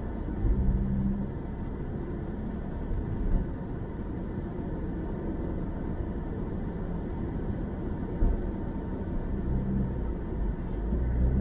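A car driving at road speed: a steady low rumble of tyre and engine noise, with a low engine hum that swells briefly near the start and again near the end.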